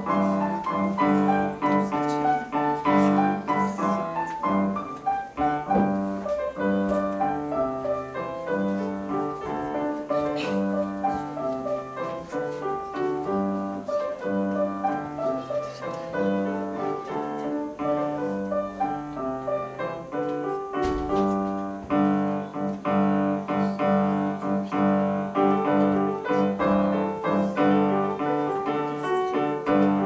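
Grand piano played solo: a continuous stream of notes with repeated bass notes beneath.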